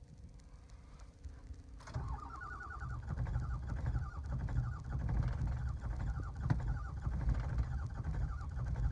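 Truck's starter motor cranking the engine over in a fast, even chug, beginning about two seconds in; the engine turns but does not fire.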